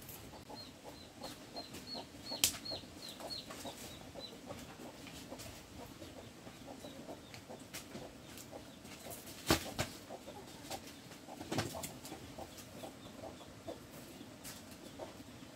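Chickens clucking, with a run of short high chirps in the first few seconds. Several sharp knocks break in, the loudest about two and a half, nine and a half and eleven and a half seconds in.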